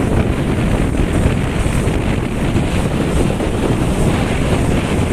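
Strong monsoon wind buffeting the microphone: a loud, steady, low rumble that swells slightly with the gusts.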